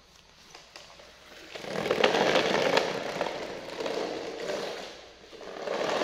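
Plastic toy dump truck rolling across a tiled floor, its hard plastic wheels rattling and grinding. It starts about a second and a half in, eases off briefly near the end, then picks up again.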